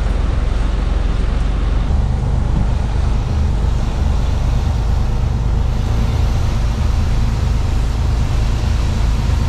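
Mercedes-Benz Actros truck driving, heard from inside the cab: a steady low engine drone under road noise.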